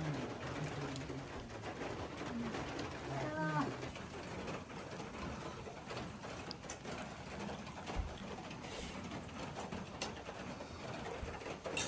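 Low pitched animal calls: one drawn-out call fading out about a second in, then a short call that bends up and down in pitch about three and a half seconds in, over a steady background hiss.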